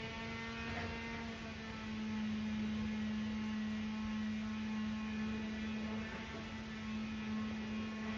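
Steady droning hum of a Boeing 737's passenger cabin in flight, with one strong low tone and fainter higher tones held constant throughout.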